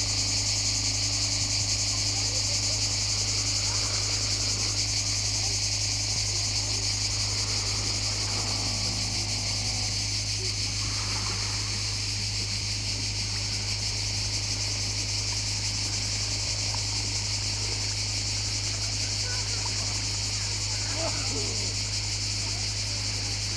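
Steady chorus of cicadas, a continuous high buzz that never breaks, over a steady low hum.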